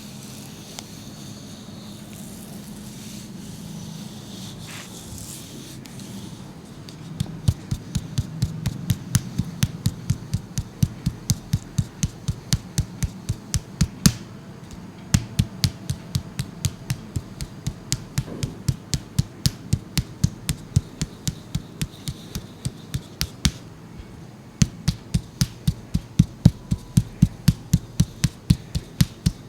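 Rhythmic Tok-Sen massage tapping: a wooden mallet striking a wooden wedge, sharp knocks at about three a second. The knocks start about seven seconds in, stop briefly near the end and then carry on.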